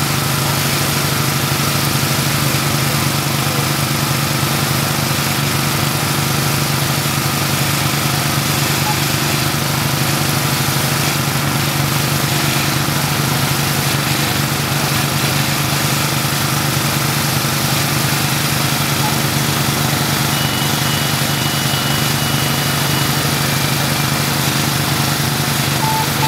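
Small engine of a hydraulic rescue-tool power unit running steadily, a loud constant drone with a rapid even pulse, powering the extrication tools.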